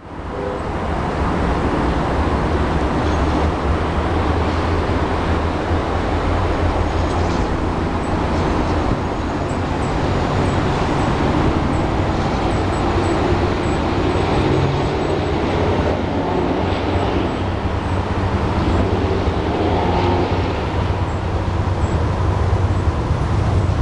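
Diesel locomotives of an approaching freight train, heard as a steady low rumble mixed with outdoor city noise.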